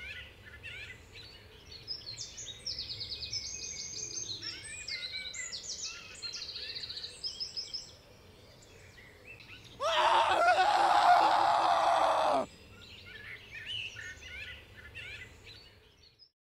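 Small birds chirping and trilling in quick high runs. About ten seconds in a loud, harsh sound cuts in for about two and a half seconds and stops abruptly, then the chirping returns briefly.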